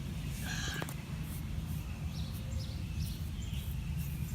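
Birds chirping in short, high calls scattered through, over a steady low background rumble.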